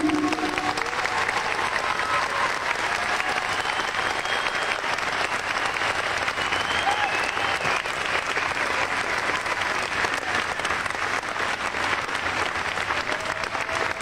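Audience applauding steadily throughout, a dense mass of clapping at an even level.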